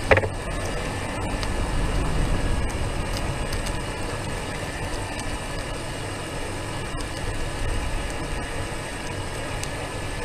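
Steady rumble of a slow-moving vehicle carrying the camera as its wheels roll over a concrete street, with a faint steady whine over it. There is one sharp knock at the very start.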